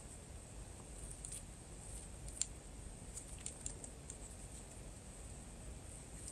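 Faint clicks and taps of a wristwatch and its leather strap being handled, with one sharper click about two and a half seconds in and a few small ticks just after.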